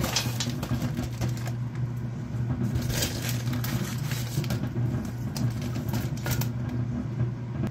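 A paper microwave-popcorn bag crinkling and rustling as it is shaken out, with popped popcorn tumbling into an enamelware roasting pan. The rustles come in irregular short crackles over a steady low hum.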